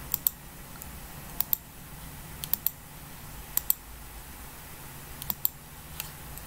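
Computer mouse clicking in quick pairs, like double-clicks, about once a second, over a steady low background hum.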